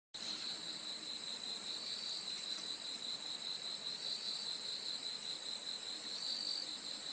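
Crickets chirping in a steady, high-pitched insect chorus that starts and cuts off abruptly.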